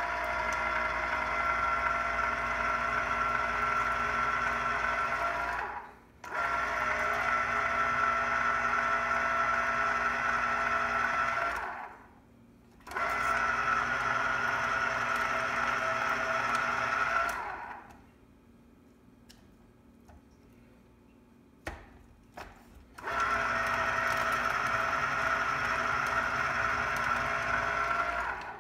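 Electric lever-arm citrus juicer's motor spinning its reamer under a pressed citrus half. It runs in four steady bursts of about five seconds each, with brief stops between the first three. A longer pause before the last burst holds two light clicks.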